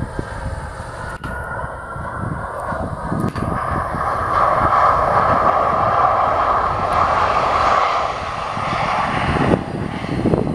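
Bombardier CRJ regional jet's rear-mounted turbofans at high power as it rolls down the runway; the jet roar swells to a peak in the middle and eases off toward the end as it passes.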